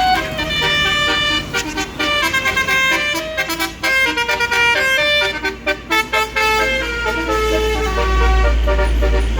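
A bus's Basuri 'telolet' multi-tone horn playing a fast tune of short, stepped notes. A low rumble swells near the end.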